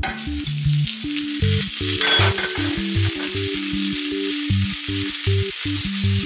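Julienned carrots dropped into hot oil in a rectangular pan, sizzling steadily, the sizzle starting suddenly as they hit the oil. Background music with plinking notes plays alongside.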